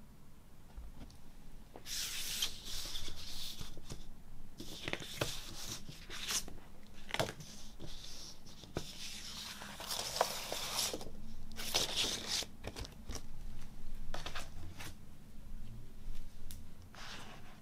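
Paper and cardboard parts of a vinyl LP package (sleeve, inner sleeve and printed insert) sliding and rustling in the hands in several short bursts, with light clicks and taps between.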